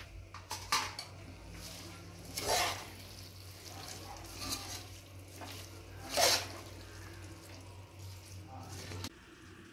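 Metal spoon stirring chicken gravy and fresh herbs in a pressure cooker pot, with a louder scrape against the pot about every two seconds. Under it runs a low steady hum that cuts off near the end.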